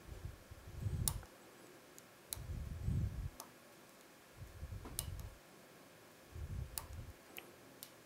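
Sharp little metallic clicks of a lock pick and tension wrench working the pins inside a five-pin euro lock cylinder, scattered irregularly, about seven in all. Under them come four bouts of low rumbling, roughly every two seconds.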